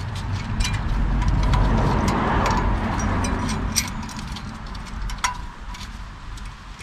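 A passing car, its engine and tyre noise swelling and then fading away over a few seconds. Over it, small sharp metallic clicks as brake pad retaining clips are pushed onto the caliper carrier.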